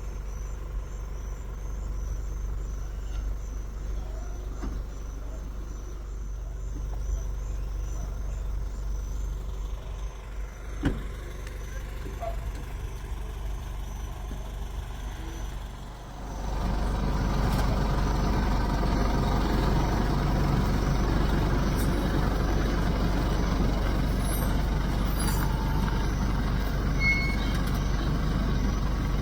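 A steady low rumble with a wash of noise, which jumps louder and fuller about sixteen seconds in; a single sharp knock about eleven seconds in.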